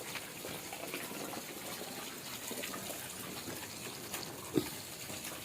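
Heavy rain pouring steadily, with a kitten giving one short mew about four and a half seconds in.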